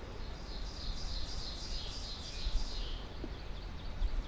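A small songbird singing a rapid series of high, down-slurred notes for about two and a half seconds, then a few fainter notes, over a steady low rumble.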